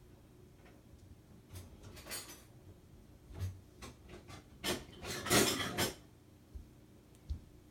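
Cutlery and kitchenware clattering as it is handled: a string of short knocks and scrapes, loudest in a dense cluster about two-thirds of the way through, then two small knocks near the end.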